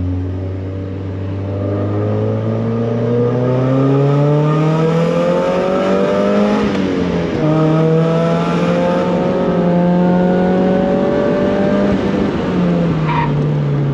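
1999 Mazda Miata's four-cylinder engine pulling hard under acceleration on a race track, its pitch climbing, then dropping at gear changes about halfway through and again near the end.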